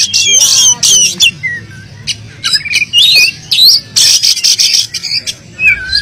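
Oriental magpie-robin singing a loud, fast, varied song of whistled glides and sweeps mixed with harsh rasping bursts, the most intense bursts near the start and again about four seconds in. The song is packed with mimicked phrases and delivered insistently (gacor ngotot).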